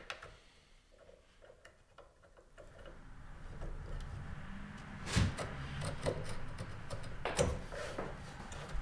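A carving knife scoring the fret slots of a guitar fingerboard by hand, a light scraping of blade on wood that begins about three seconds in. Two sharp knocks come about five and seven seconds in.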